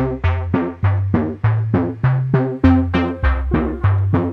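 Background music: a steady, even run of notes, about three a second, over a low bass line.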